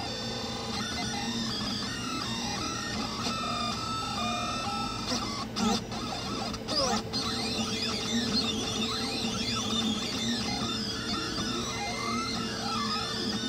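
Delta 3D printer at work: its stepper motors whine in tones that rise and fall as the print head moves, over a steady hum. A few sharp clicks come about halfway through.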